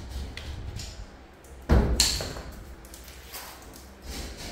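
Scattered knocks and thuds, the loudest a sharp double thump nearly two seconds in, echoing off hard tiled walls.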